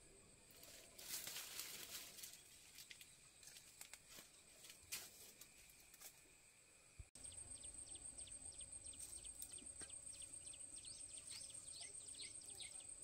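Faint outdoor ambience. First there is light rustling with scattered small clicks. After a cut about seven seconds in, small birds chirp repeatedly in short rising notes over a steady high-pitched whine.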